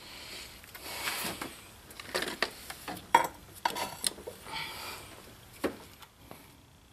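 Metal hand tools clinking and scraping on an engine motor-mount bolt and bracket as a wrench works the bolt loose: a string of separate sharp clicks and knocks, the loudest about three seconds in. The bolt's threaded hole is stripped.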